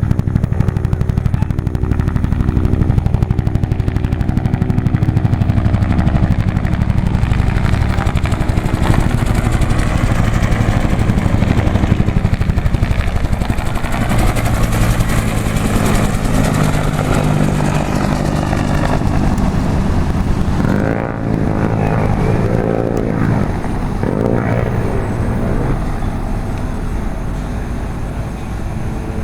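Helicopters flying, their rotors and engines running loudly with a rapid, steady rotor beat. The pitch slides around the middle as one passes by.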